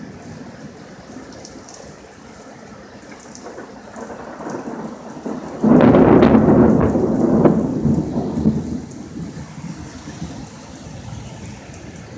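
Close thunder: a low rumble builds about four seconds in, then a sudden loud clap just before six seconds, with crackling peals rolling on for about three seconds before fading back to a low rumble.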